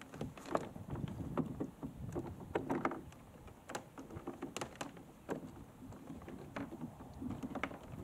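A fishing kayak on the water: water slapping and lapping at the hull, with irregular light knocks and clatters scattered through, under a low rumble.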